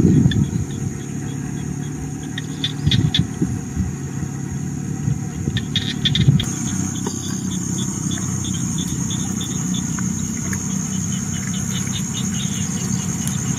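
Steady high-pitched insect drone from forest insects, louder from about six seconds in, with quick pulsing chirps. Underneath runs a continuous low rumble.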